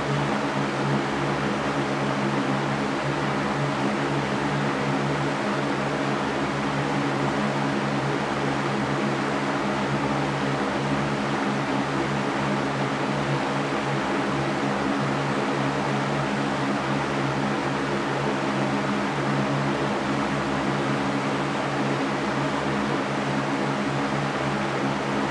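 Electric fan running steadily: an even whooshing hiss of moving air over a low motor hum.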